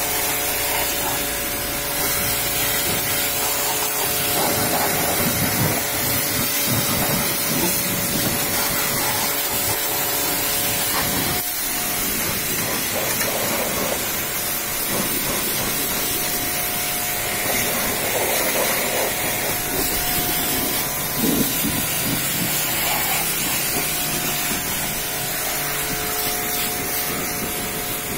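High-pressure washer jet spraying against a vehicle's tyre, wheel arch and underbody: a steady hiss of water with a steady machine hum underneath, which drops out briefly about eleven seconds in.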